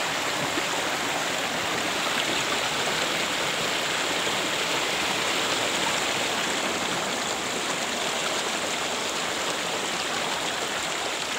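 A small rocky mountain stream running and splashing over and between boulders, a steady rush of water close to the microphone.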